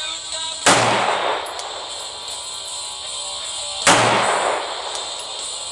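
Glock 19X 9mm pistol fired twice, about three seconds apart, each shot trailing off in a short echo.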